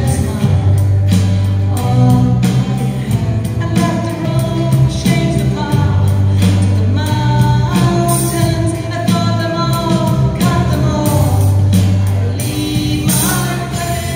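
Live band playing a song: a voice singing over electric bass, drums with cymbals, and electric guitar.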